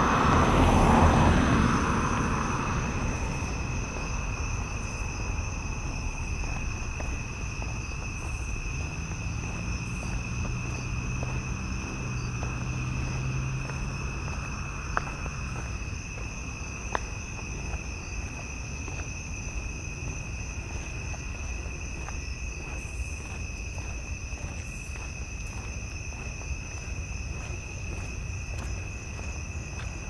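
Crickets trilling steadily at several high pitches in a night insect chorus. A vehicle passes at the start, loudest about a second in and fading over the next couple of seconds, and a low engine hum comes and goes in the middle.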